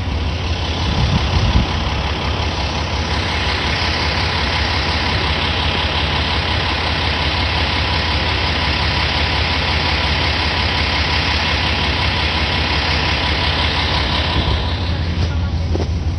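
Diesel railcar engine idling with a steady low hum while the train stands stopped after an emergency stop. There is a brief louder rumble about a second in, and a hiss that comes in a few seconds in and fades near the end.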